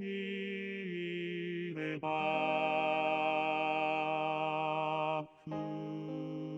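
Choral singing in long, slow held notes with vibrato, broken by two short pauses for breath.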